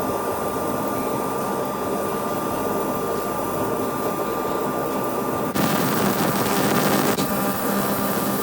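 Laser cleaner ablating rust and dirt from steel lathe chuck jaws: a steady hissing buzz with a thin high whine. It gets louder and fuller about five and a half seconds in.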